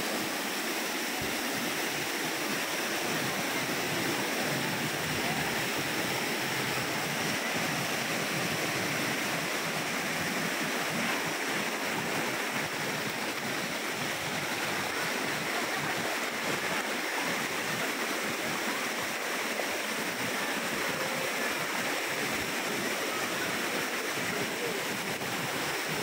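Waterfall pouring down a rock face into a plunge pool: a steady, even rush of falling water.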